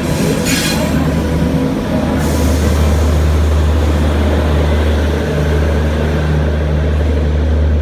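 Train running on the rails: a loud, steady low rumble, with a hiss from wheels and rails coming in about two seconds in and fading near the end.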